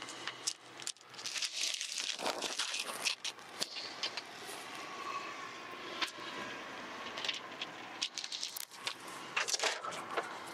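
Crinkling and rustling of thin clear plastic film and its backing liner being handled, with small clicks and scrapes.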